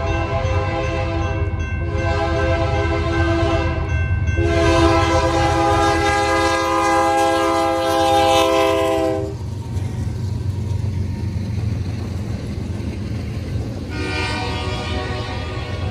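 BNSF GE C44-9W locomotive's air horn sounding for a grade crossing: a blast, a second blast, then a long blast held about five seconds as the locomotive reaches the crossing, over the low rumble of the diesels and rolling train. After the horn stops, the double-stack container cars roll past with a steady rumble, and a similar horn-like chord sounds again near the end.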